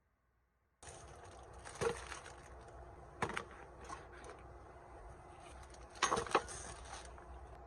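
A few short knocks and rustles over a steady low hiss, which starts abruptly about a second in: the loudest come near 2 seconds, at about 3 seconds and as a quick pair around 6 seconds.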